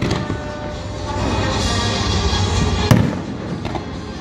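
Fireworks exploding: a sharp bang at the start and a louder one about three seconds in, with music playing underneath.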